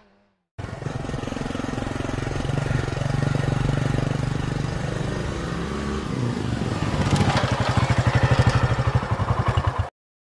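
Motorcycle engine running as the bike rides up and stops. In the last few seconds it goes louder, with an even pulsing of about four beats a second, then cuts off suddenly.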